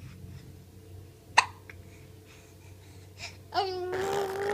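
A single sharp hiccup about a second and a half in, then a long, wavering vocal sound near the end as Zoey keeps 'talking' through the hiccups.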